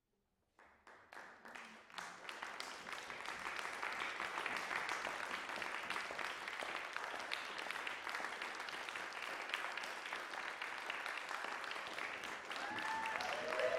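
Audience applauding at the end of a performance: a few scattered claps about half a second in quickly thicken into steady applause, and voices cheering join near the end.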